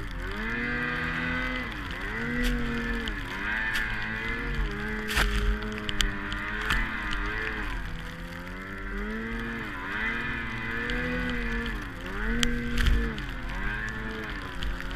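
Snow machine engine revving, its pitch dropping and climbing again every second or two as it pushes through deep powder snow. A few sharp clicks stand out, loudest about five seconds in and near the end.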